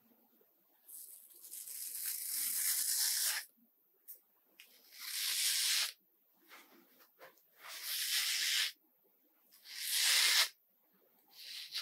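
Multi-blade cartridge razor scraping through shaving foam over a lathered scalp, in five strokes with short pauses between them. The first stroke is the longest, at over two seconds.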